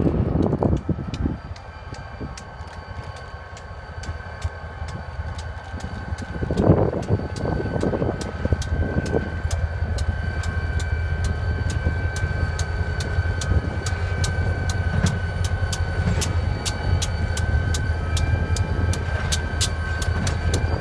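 Diesel locomotive running: a steady low engine hum with a high whine over it, and a regular ticking of about three a second. A brief louder noise comes about seven seconds in.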